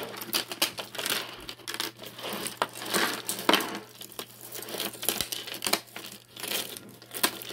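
Glass beads and metal chains of a tangled pile of jewelry clicking and rattling against each other as hands pull them apart, in many small irregular clicks.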